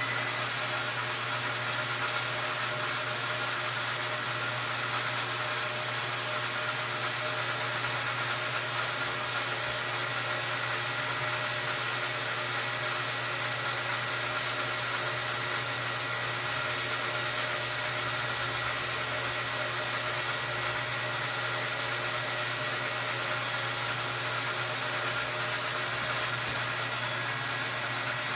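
Metal lathe running steadily with a constant motor hum and whine while a facing cut is taken across an aluminium piston.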